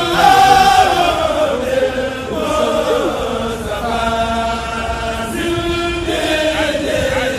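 A voice chanting in long, held notes that waver and glide from one pitch to the next, with a new phrase every second or two.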